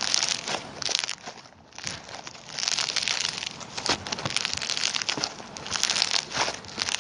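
Slime being squished and worked by hand, making dense crackling and popping sounds in bursts, with a short lull about a second and a half in.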